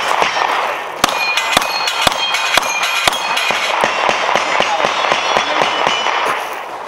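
Pistol shots fired in a rapid string at steel plate targets, about two a second from about a second in, the struck plates ringing with a metallic clang after hits.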